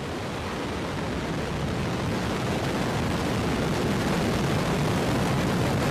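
First-stage engines of the Terran 1 rocket at liftoff, nine methane-fuelled Aeon 1 engines: a loud, steady noise of rocket exhaust with a deep low end, slowly growing louder over the seconds.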